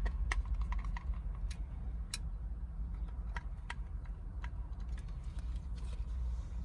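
Scattered light plastic clicks, irregularly spaced, from the newly fitted switch panel being handled, over a low steady hum.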